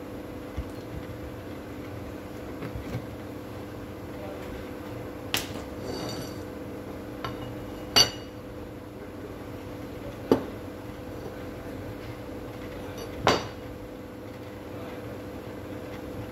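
Metal parts of a dismantled impact drill, a steel plate and the chuck, picked up and set down on the workbench: four separate clinks and knocks a few seconds apart, the loudest with a short metallic ring. A steady low hum runs underneath.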